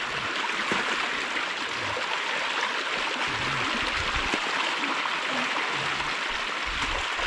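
Shallow muddy stream running steadily, a continuous rushing of water, with a few faint low thumps.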